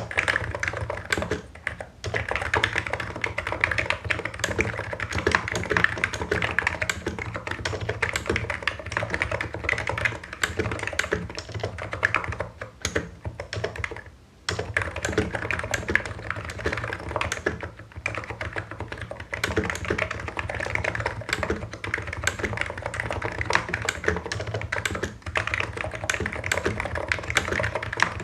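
Hansung Office Master full-size electrostatic capacitive (non-contact) keyboard with low Cherry-profile keycaps, typed on quickly: a continuous stream of keystrokes broken by a few brief pauses.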